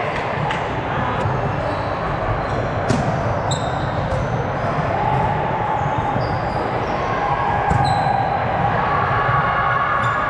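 Indoor volleyball play in a gym: a steady din of the hall with background voices, sneakers squeaking briefly on the court floor, and a few sharp ball hits, the clearest about three seconds in and again near eight seconds.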